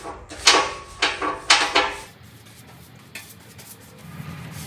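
A paintbrush slapping and dragging across the bare sheet-steel deck of a John Deere mower, three quick strokes about half a second apart, each with a brief metallic ring. The strokes then stop.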